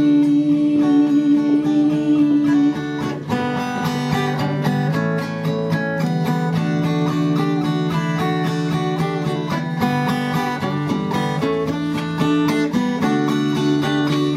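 Guitar strumming and picking chords in an instrumental passage between sung lines of a song, with a long held note at the start that stops a few seconds in.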